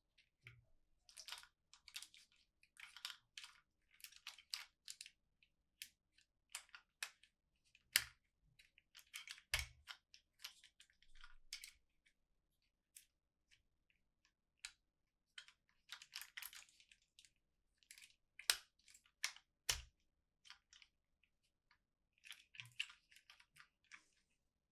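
Plastic toy packaging being handled and opened: irregular bursts of crinkling and rustling, with several sharp clicks and taps of hard plastic scattered through.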